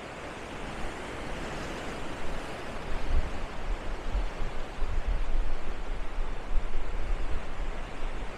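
Steady hiss of ocean surf with wind gusting on the microphone, the buffeting growing stronger about three seconds in.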